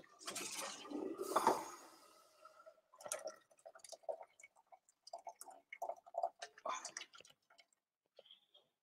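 Water pouring and splashing off freshly cooked pasta as it is drained, for about two seconds. Then a run of light clicks and clinks of a metal strainer and utensils against the pot and pan as the pasta is tipped in.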